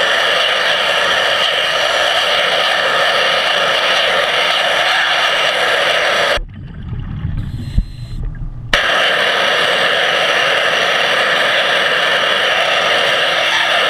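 Underwater pressure-washer jet spraying against a stainless steel intake screen: a loud steady hiss with a faint steady hum beneath it. It cuts out for about two seconds just past the middle, leaving low rumbling and a single knock, then starts again.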